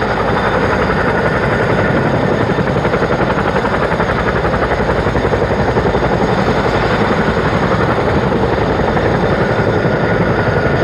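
A Chinook twin-rotor helicopter running on the ground, rotors turning, before takeoff: a steady loud noise with a fast, even blade chop and a thin steady whine above it.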